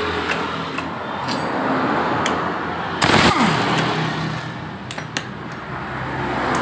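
Suzuki Nex II scooter running with its CVT cover off, the belt drive giving a steady rough mechanical noise that the mechanic traces to a worn driven-pulley bearing. A few sharp clicks, and a short loud burst of noise about three seconds in.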